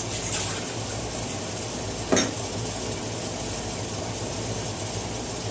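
A single short clink of kitchenware, such as a pot or measuring cup, about two seconds in, over a steady low hum.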